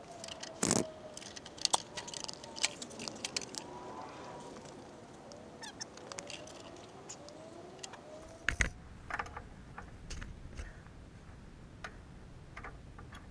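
Sharp metallic clinks and knocks from hand tools and steel hitch parts being handled, scattered irregularly, with faint wavering squeaky tones gliding up and down between them for the first half.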